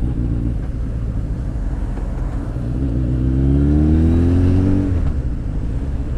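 Honda X4 motorcycle's inline-four engine running with wind rush, then accelerating from about two and a half seconds in, its note rising steadily and getting louder until it drops off just before five seconds. The exhaust is one the rider admits is a little bit noisy.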